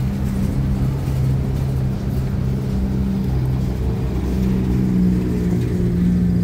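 A motor vehicle engine running steadily with a low hum, its pitch dropping slightly about five seconds in.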